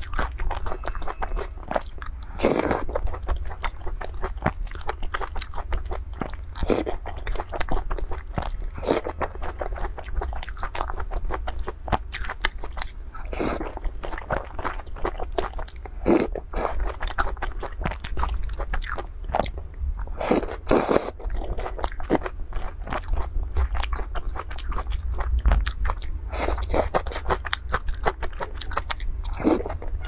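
Close-miked eating: wet chewing and crunching with many mouth clicks, broken by several short slurps as food is sucked from the chopsticks out of a bowl of soup.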